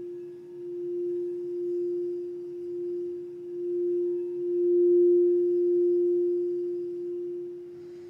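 Quartz crystal singing bowl ringing with one sustained tone that swells and eases in slow waves, loudest about five seconds in.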